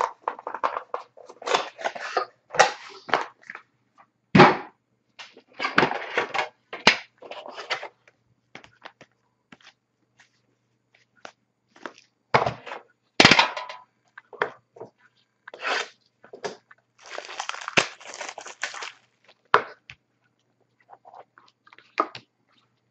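Plastic wrapping crinkling and tearing as a sealed box of hockey cards is opened, mixed with clicks and taps of the box and card holder being handled. The noises come in short irregular bursts, with a few sharper snaps and a longer stretch of crinkling about three quarters of the way through.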